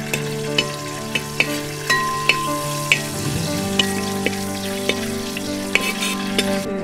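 A metal ladle stirring in a hot brass uruli, knocking and scraping against the pot about a dozen times at an irregular pace, some strokes leaving a brief metallic ring. Food sizzles and fries in the pot underneath.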